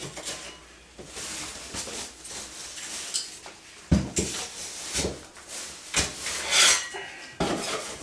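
Loose, water-damaged paper drywall tape being ripped off a ceiling joint, with scratchy scraping and several sharp knocks about a second apart from about halfway in.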